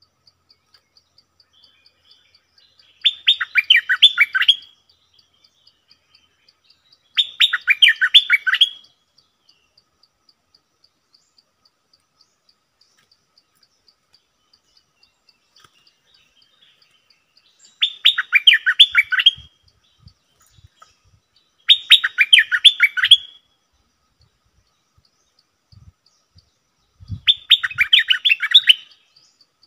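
Stripe-throated bulbul singing five short bursts of quick, tumbling notes, each about a second and a half long, with long pauses between them. A faint, steady insect ticking runs underneath.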